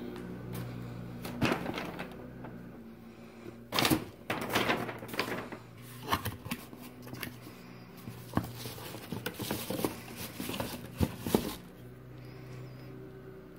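A cardboard shoebox and its paper being handled as a pair of Vans sneakers is unpacked: irregular rustling, crinkling and light knocks, loudest around four seconds in, over a steady low hum.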